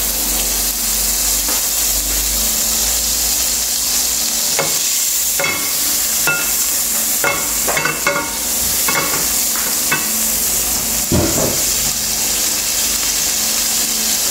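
Butter melting and sizzling in a hot stainless steel pan: a steady frying hiss with scattered small crackles and pops.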